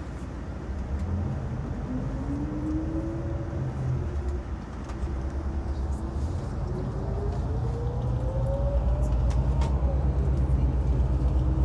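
Tour coach running under way, heard from inside: a steady low engine rumble with a whine that rises in pitch twice as it accelerates, louder in the second half.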